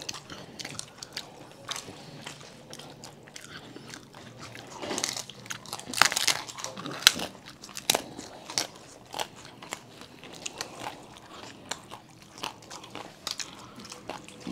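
Several people biting into and chewing pani puri, the crisp hollow fried puri shells filled with spiced water: irregular sharp crunches and wet chewing, busiest about five to eight seconds in.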